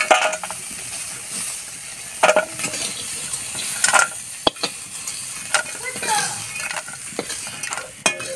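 Crab pieces frying in hot mustard oil in a kadai, sizzling steadily, while they are stirred with scraping strokes against the pan every second or two.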